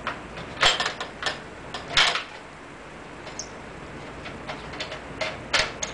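Metal clanks and clicks as a lighting fixture is mounted onto the adapter of an aluminium die-cast four-way grip clamp: a handful of sharp knocks, the loudest about two seconds in, lighter ticks after, and another clank near the end.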